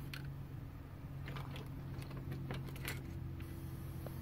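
Several short clicks and light metallic rattles of tools and test leads being handled on a workbench, over a steady low hum.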